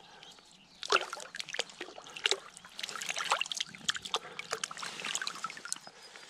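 Shallow river water splashing and trickling around hands as a trout is released and swims off, with one sharp splash about a second in and a run of smaller splashes after it.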